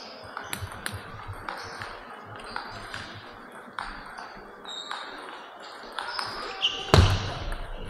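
Table tennis rally: the ball clicking sharply off the paddles and table about twice a second, with a much louder hit about seven seconds in.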